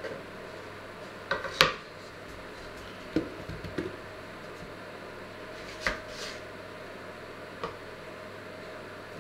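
A few separate knocks and clatters of kitchen work. A small wooden board is tapped against a steel cooking pot as sliced onion is scraped into it, with the loudest knock between one and two seconds in. Then come duller thumps and lighter taps as things are set down on a wooden cutting board.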